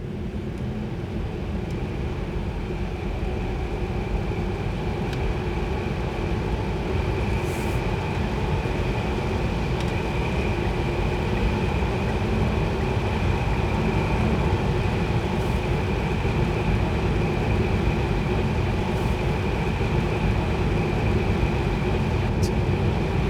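Tesla Model 3 driving at a steady speed on a wet road: continuous low tyre and road noise with a few steady held tones over it, growing slowly louder over the first dozen seconds.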